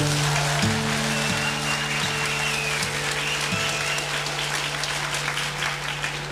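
Acoustic guitar ringing out a held low chord, with a few slow low notes plucked under it in the first few seconds, while an audience applauds. A thin high whistle rises and falls over the applause, fading out about two-thirds of the way in.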